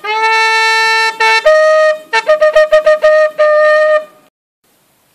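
Long shofar blown in a sequence: a long held blast, a second long note at a higher pitch, a quick run of about seven short blasts, then a final long blast, stopping about four seconds in.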